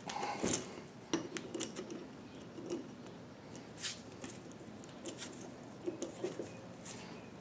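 Pliers clicking and scraping against the steel roller-bearing cage on a differential pinion gear as the chewed-up cage is pried and broken apart. Irregular, scattered metallic clicks with short scrapes between them.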